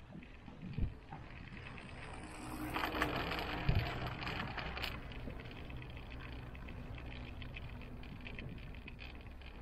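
Gondola cable car cabin running along its haul rope: a steady low hum and rushing noise, with a few dull thumps and a swell of hiss a few seconds in.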